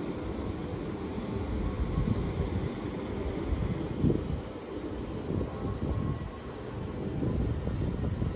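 Train wheels squealing in one long, steady high-pitched tone that starts about a second and a half in, over the low rumble of a red regional train moving out along the platform track.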